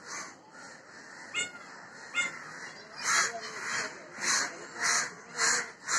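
A crow cawing in a steady series of harsh caws, about one every half second, starting about three seconds in. Two shorter, sharper calls come before the series.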